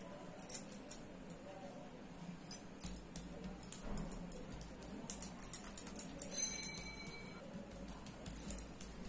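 Glass bangles on a wrist clinking lightly as a hand spreads butter over dough, a scatter of faint, sharp ticks. A short ringing tone sounds about two-thirds of the way through.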